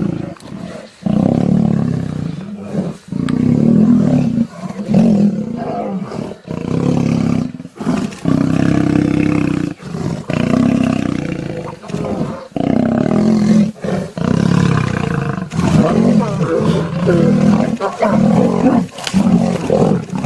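Male lions roaring as they fight: loud, low-pitched calls that run almost without pause, broken off by short gaps every second or two.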